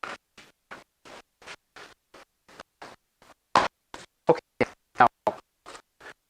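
Badly broken-up lecture audio cutting in and out about three times a second, a dropout fault in the recording. It holds faint scratchy fragments at first, then from about halfway through louder chopped-up snatches of a voice.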